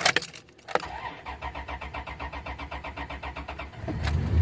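A few clicks, then a Dodge Dakota's engine turning over on the starter in rapid, even pulses for about three seconds before it catches near the end and settles into a low, steady idle through its newly fitted muffler.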